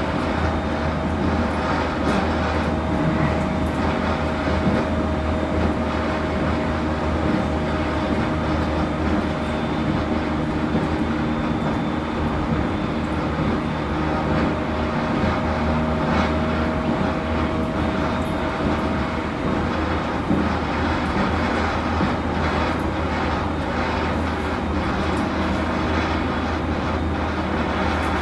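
Electric train motor car running with a steady rumble and an unusual steady tone over it, which fades out about two-thirds of the way through. The owner of the recording takes it for an abnormal noise from the motor car and wonders whether it is all right.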